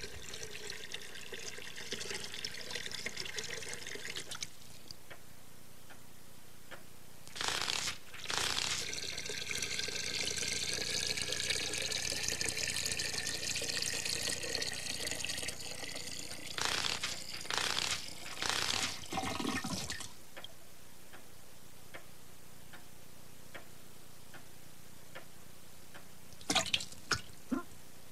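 Water running and splashing in a fish tank, in a cartoon soundtrack. The longest run lasts about ten seconds and its pitch rises slowly, broken by a few bursts, and a few short drips or plops come near the end.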